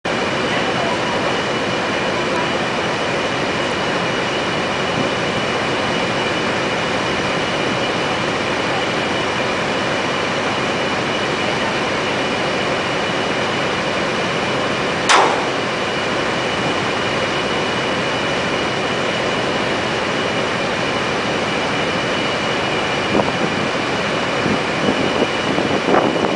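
Heavy-lift machinery running steadily: an even machine noise with a constant high whine. A brief, sharp falling squeal comes about halfway through, and a few knocks come near the end.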